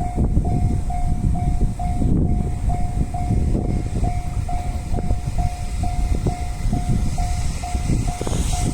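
Japanese level crossing's electronic warning bell ringing steadily, just under three strokes a second, over the loud rumble of a train passing over the crossing. A hiss rises near the end.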